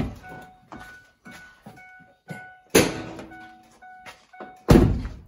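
2009 Ford F-150 with its door open, its warning chime dinging at one pitch about twice a second. Door-handle and cab knocks go with it, a heavy thud comes about three seconds in, and a loud slam near the end of the chime sounds like the door shutting.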